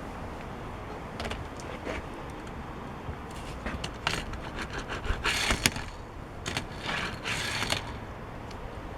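Small die-cast toy car being rolled across a surface: faint rolling and scraping of its plastic wheels, with a few light clicks and two short scraping bursts in the second half.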